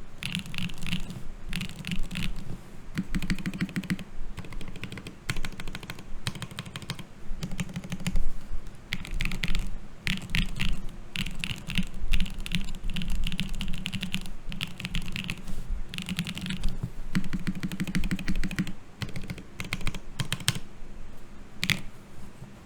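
Typing in fast bursts with short pauses on a custom mechanical keyboard: an Eniigma Infinitum case with an aluminium plate and no foam, Gateron Pure Berry switches lubed with Krytox 205g0, and ePBT keycaps. Each keystroke clicks, over a low thud from the table as the switches bottom out.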